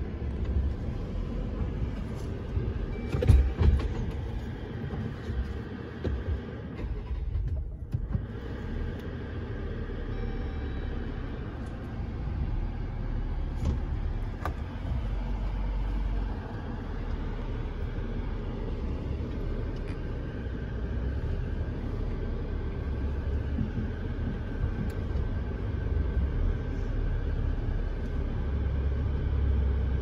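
Jeep Gladiator crawling up bare slickrock, heard from inside the cab: a steady low engine and drivetrain rumble at crawling speed, with a few sharp knocks about three to four seconds in.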